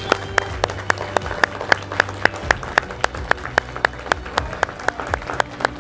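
Audience applauding, with sharp individual claps standing out close by, several a second.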